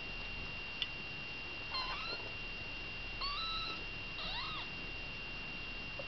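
Very young kittens mewing: three short, high mews about a second apart, with a brief click just before the first.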